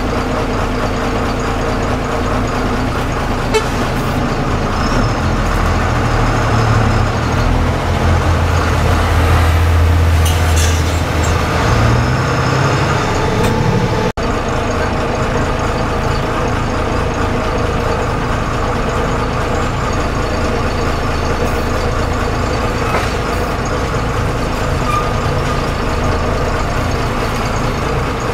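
A bus engine running as it drives along a highway, heard from inside the cab, with vehicle horns tooting now and then. The engine note climbs around the middle, then there is a brief dropout.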